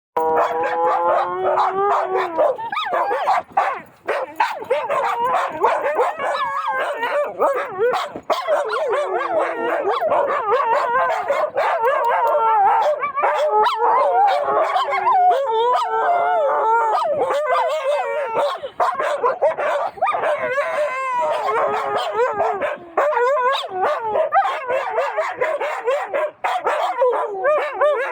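Dogs howling and yipping over one another without a break, their calls wavering up and down in pitch.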